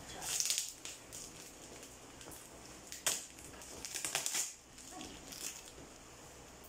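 Scissors cutting and scraping along packing tape on a cardboard box: short scratchy rasps, with a sharp click about three seconds in and another cluster of rasps just after.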